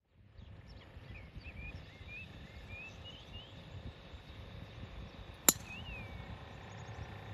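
A golf club striking a ball off the tee: one sharp, clean click about five and a half seconds in. Before it, a bird chirps a run of short rising notes over outdoor background noise.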